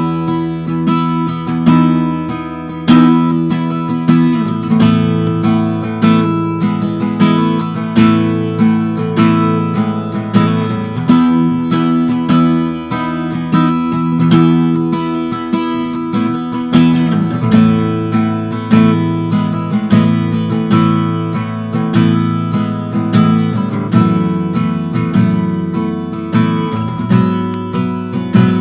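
D&D Django Jr mahogany travel-size acoustic guitar played unplugged: a chord progression with many plucked notes in a steady pattern, the chords changing every few seconds.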